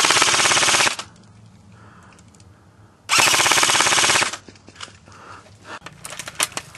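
Airsoft electric gun firing full-auto in two bursts, the first cutting off about a second in and the second lasting about a second from three seconds in, followed near the end by scattered single sharp pops.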